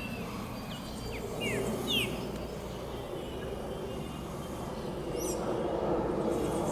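Distant, steady rumble of a Boeing 737-400 airliner's CFM56 jet engines overhead, growing a little louder near the end. Birds chirp a few short calls about a second and a half in and again around five seconds.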